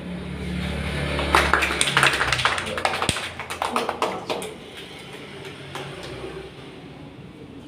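A quick run of sharp taps and clicks starts about a second in and thins out over about three seconds. Under it is a low steady hum that fades out part way through.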